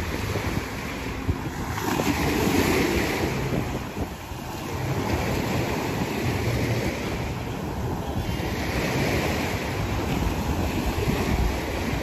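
Small waves breaking and washing up a sand beach, swelling twice a few seconds apart, with wind buffeting the microphone.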